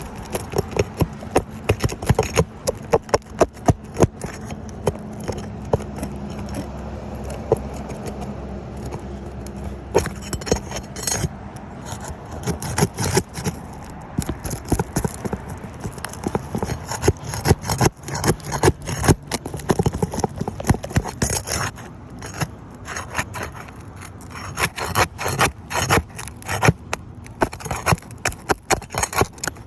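Roofing nails being pried out of old, stiff asphalt shingles with a metal tool: many sharp clicks, knocks and scrapes in irregular runs.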